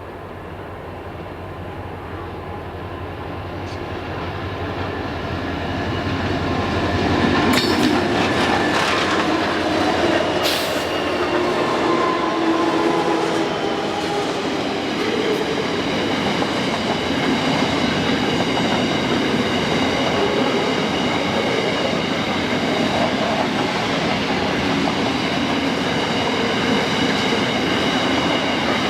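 A diesel-hauled freight train drawing near and passing close by. The locomotive's engine sound grows louder over the first several seconds. The wagons then roll past with steady wheel-on-rail noise, a couple of sharp clanks, and a high, steady wheel squeal.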